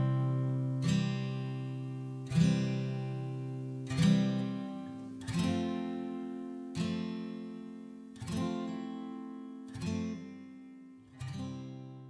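Background music: slow acoustic guitar chords, one struck about every second and a half and left to ring, growing gradually quieter.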